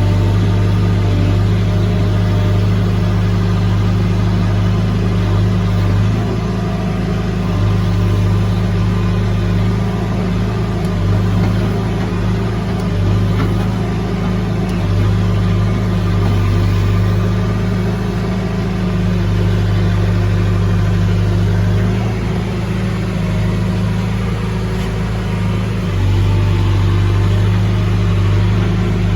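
Heavy equipment diesel engine running steadily at a constant speed, a deep even hum, rising slightly in level about 26 seconds in.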